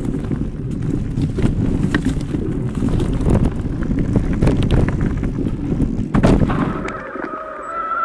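An electric mountain bike riding over a forest dirt trail: a steady low rumble of tyres and wind on the microphone, with frequent sharp rattles and knocks from the bike. A heavier knock comes about six seconds in. Soon after, the rumble drops away and a steady high whine comes in.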